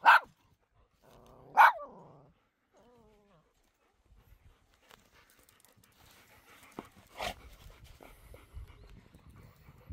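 A small spitz-type dog barking sharply twice, about a second and a half apart, with a brief whine after the second bark. A fainter whine follows, and a weaker single bark comes about seven seconds in.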